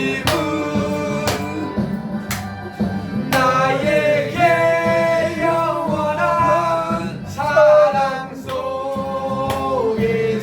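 A man singing a slow worship song over musical accompaniment.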